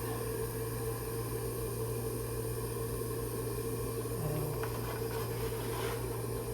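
Steady low workshop hum with a higher steady tone and a faint hiss, while a thin wooden kerfing strip is bent against a heated pipe; a couple of faint light taps of the wood being handled come about four and a half and six seconds in.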